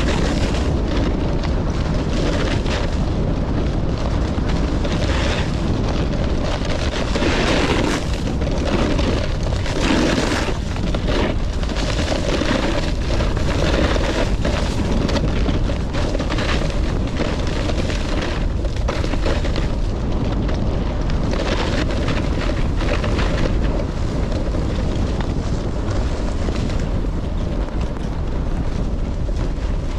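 Wind buffeting a helmet- or body-mounted camera's microphone while snowboarding, with the board scraping and carving over snow in irregular surges, heaviest in the middle.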